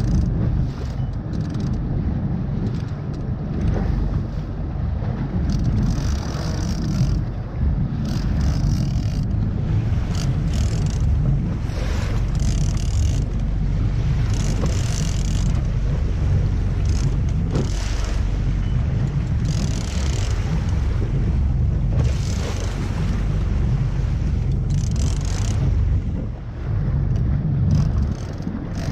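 Wind buffeting the action camera's microphone on a boat at sea: a heavy, uneven rumble with brief hissing surges every second or two.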